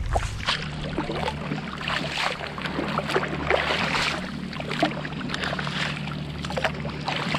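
Water splashing and dripping as a fishing net is hauled in by hand, in irregular splashes over a steady low hum.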